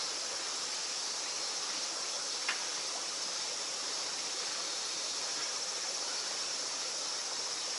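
Steady high-pitched insect chorus, with one faint click about two and a half seconds in.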